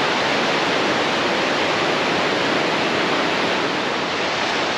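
Fast-flowing River Dart, a steady, loud rush of white water.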